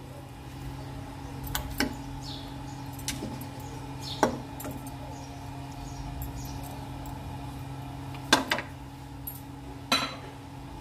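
Pieces of raw meat dropped into an empty metal pressure cooker pot, landing with a few sharp knocks against the metal, the loudest about four, eight and ten seconds in. A steady low hum runs underneath.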